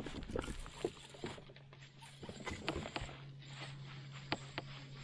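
Light irregular clicks and taps from a fishing rod and reel being worked in a kayak, over a low steady hum.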